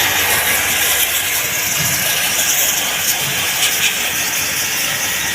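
Pressure-washer water jet spraying onto a window air conditioner during a water service: a loud, steady hissing spray over the low run of the washer's motor.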